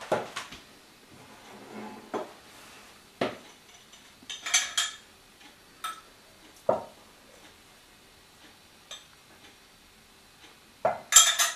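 Scattered clinks and knocks of kitchen utensils: a knife scraping and tapping cheese off a plastic chopping board into a metal saucepan, then a spoon clinking against a bowl as beaten egg is poured into the pan. The hits are short and separate, with a brighter ringing clink about four and a half seconds in.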